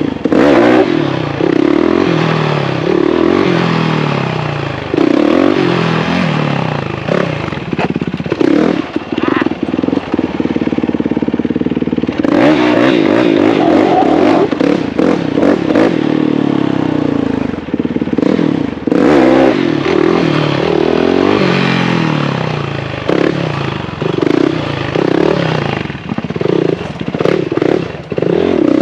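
Motorcycle engine revving over and over, its pitch rising and falling as the throttle is worked on and off.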